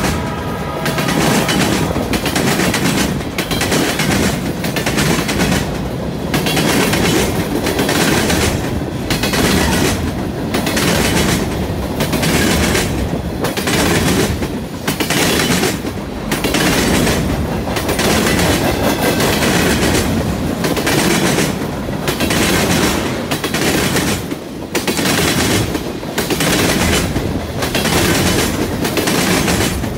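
Freight cars of a CN train rolling past close by, the wheels clacking over rail joints and a junction switch. The clatter swells and dips about every second and a half as each car goes by. The last of the locomotive horn fades out in the first second.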